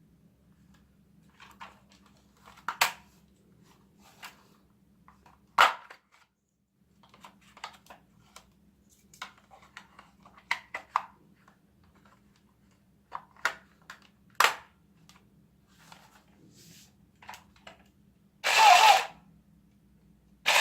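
Hard plastic parts of a toy assault rifle being handled, giving scattered clicks and knocks. Near the end comes a loud burst of about a second, like the toy's electronic sound effect.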